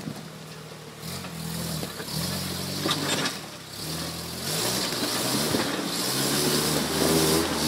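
Off-road truck engine revving in repeated surges as it climbs a rocky trail, with a hiss high above it. The revs rise again near the end.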